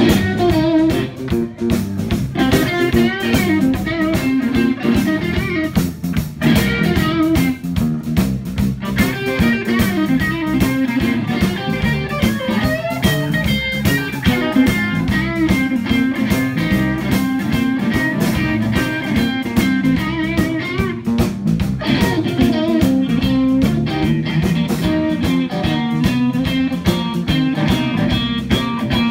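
Live blues band playing: electric guitar over electric bass and drums, recorded on a phone's microphone.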